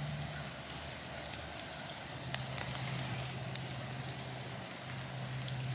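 Wet woodland ambience: a few sharp ticks of water dripping onto leaves over a steady background hiss, with a steady low hum.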